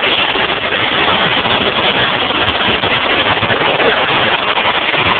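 Unmuffled demolition derby car engines running together in a loud, steady din.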